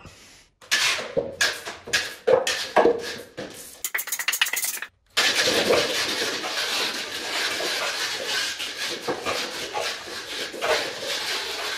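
A toy blaster shooting at a stacked pyramid of paper cups: an irregular run of sharp clicks and knocks with a quick rattling flurry as cups are hit and tumble. About five seconds in, a steady, even rushing noise with a slight pulse takes over and runs on.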